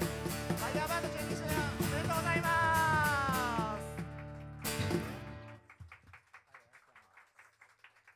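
A live band with acoustic guitar, bass and drums finishing a song: a long sung note slides down, a last accented hit about five seconds in rings out and fades, then a few seconds of sparse, even clapping.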